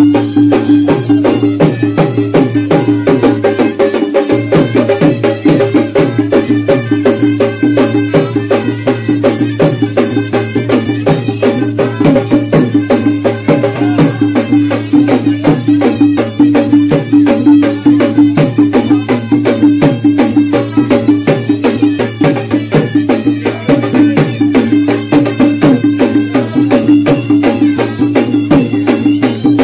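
Khalu baja folk band playing live: a held tone and a wandering melody over a steady drum beat with a rattling percussion layer.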